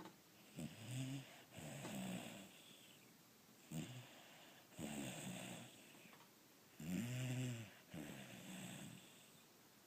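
Snoring: a run of uneven breaths in and out, several of them with a pitched snore. The loudest and longest snore comes about two-thirds of the way in.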